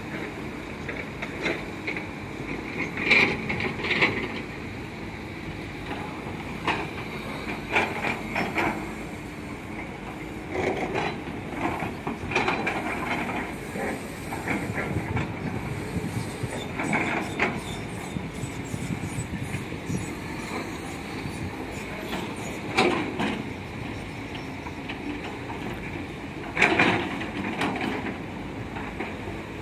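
Several hydraulic excavators at work: engines running steadily under irregular metallic clanks and squeals from buckets, booms and steel tracks, with louder clanks several times.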